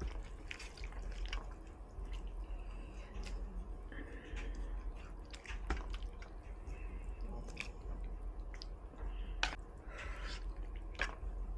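Close-miked eating sounds: irregular sharp mouth clicks and smacks while chewing soft tofu and vermicelli noodles, over a steady low hum.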